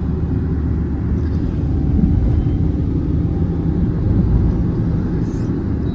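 Steady low rumble of a car driving through city traffic, heard from inside the cabin: engine and tyre noise.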